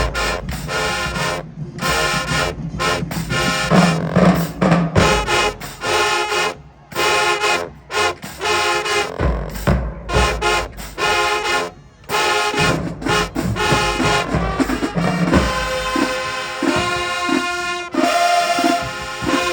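Marching band playing: brass with drums, in short punched chords broken by brief gaps, settling after about fifteen seconds into held horn notes over a steady drum beat.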